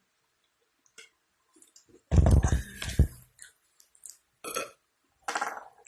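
A woman's loud, low burp about two seconds in, lasting about a second, brought up by the gas from chugged soda. A few much quieter short sounds follow near the end.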